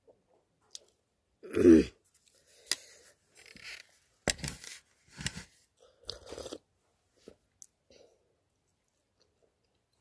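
Eating and drinking sounds close to the microphone: a loud throaty vocal sound falling in pitch about a second and a half in, then a run of short sips, slurps and mouth noises from drinking out of a mug, with small clicks, fading to a few faint ticks near the end.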